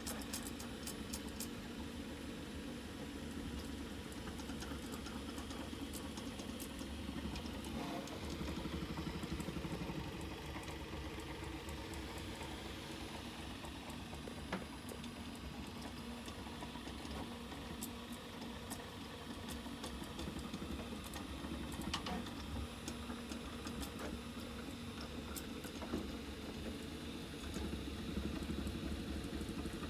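Craftbot Plus 3D printer running, its stepper motors whirring steadily in shifting pitches as the axes move, with a few light clicks. It is driven by an SKR 1.4 control board under Marlin firmware, which makes it smooth and not so noisy.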